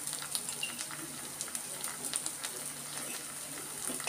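Onion-tomato masala sizzling gently in a non-stick frying pan: a soft steady hiss scattered with small crackles.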